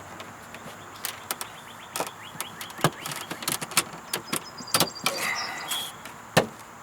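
Hands working at a plastic under-dash trim panel that won't come loose: irregular sharp clicks and knocks of the plastic, with a rattling scrape about five seconds in.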